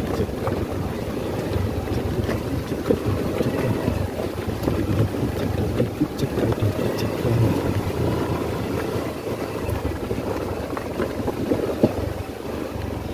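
Motorcycle engine running steadily at low speed over a rough, stony dirt track, with wind buffeting the microphone and a few short knocks from the bumpy ground.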